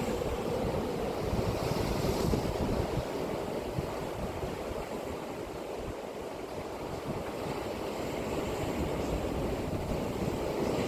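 Sea waves breaking and washing on the shore, a continuous surf wash that swells slightly about two seconds in, with wind buffeting the microphone.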